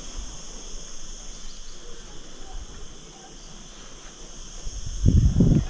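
Steady high-pitched chorus of insects, such as crickets, shrilling without a break. About five seconds in, a short, loud, low rumble covers it for half a second.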